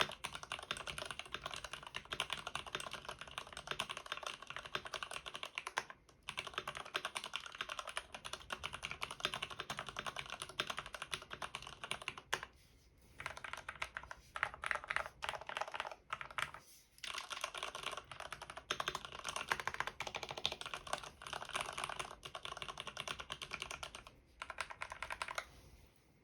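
Arkon FX2 mechanical keyboard with lubed Cherry MX Red linear switches, Krytox-lubed and with Permatex on the stabilizers, being typed on fast and continuously: a dense run of keystrokes broken by a few short pauses.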